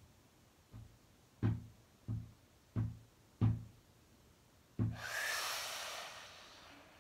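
Vocal beatbox: a slow, steady run of low kick-drum sounds made with the mouth, about one every two-thirds of a second, then a long hissing cymbal-like sound that fades out.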